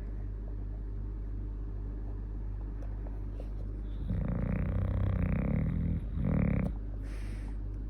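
A sleeping Staffordshire terrier snoring: one long snore about four seconds in, lasting about two seconds, then a shorter one right after it. A steady low hum runs underneath, and there is a short hiss near the end.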